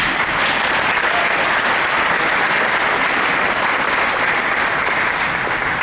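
Audience applauding: loud, steady clapping from a large crowd that swells up just before and starts to die away at the very end.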